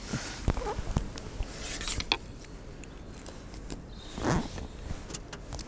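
Close handling noise of fishing tackle: scattered light clicks and knocks, with a louder rustle about four seconds in.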